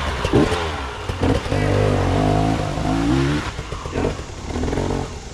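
Dirt bike engine revving, its pitch wavering up and down as the throttle is worked, strongest for a couple of seconds in the middle.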